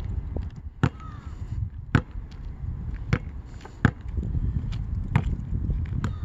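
Basketball bouncing on asphalt as it is dribbled: about six sharp bounces, unevenly spaced roughly a second apart, over a steady low rumble.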